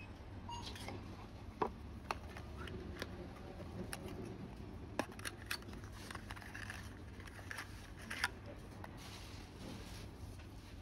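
Hands handling small black cardboard boxes: scattered light clicks, taps and rustles as a box is slid open and a charging cable is lifted out, over a steady low background hum.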